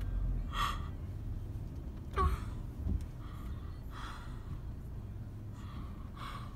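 A young woman crying with gauze in her mouth after oral surgery: a series of shaky, gasping breaths and sighs, with a short falling whimper about two seconds in. A low car-interior rumble runs underneath.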